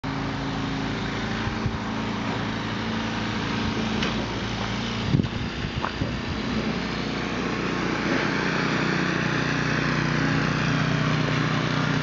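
Small gasoline engine of a snowblower running steadily, growing louder about eight seconds in. A brief knock about five seconds in.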